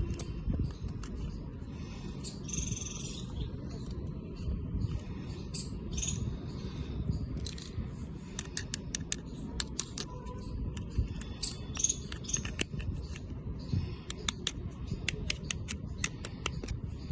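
Handling sounds of an unboxing: light rustling and runs of rapid sharp clicks over a low, steady rumble.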